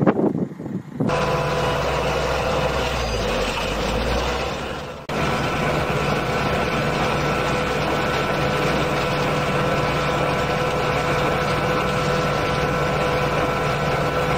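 Combine harvester running, its belt drive and pulleys turning: a steady mechanical hum with a high whine, which dips briefly about five seconds in. For the first second, gusty wind noise buffets the microphone.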